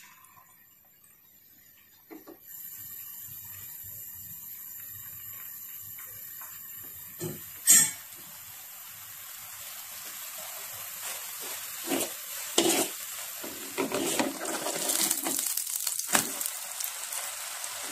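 Beaten egg frying in hot oil in a non-stick pan: a steady sizzle sets in a couple of seconds in and grows louder. A sharp knock comes about eight seconds in, and a wooden spatula scrapes and knocks against the pan over the last few seconds.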